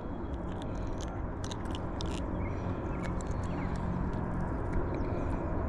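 Wind rumbling on the microphone, with scattered small clicks and scrapes of hands handling a small catfish while working a soft-plastic worm and hook out of its mouth.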